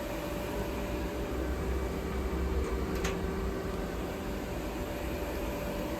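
Steady machinery hum with fan-like noise and a faint constant tone, with a single short tick about three seconds in.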